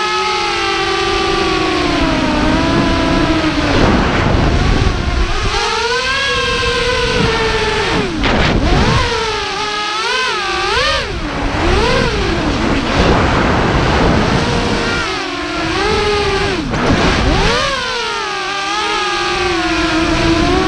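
F210 FPV quadcopter's brushless motors and propellers whining, the pitch swooping up and down again and again with the throttle, over a low rush of wind on the onboard camera's microphone.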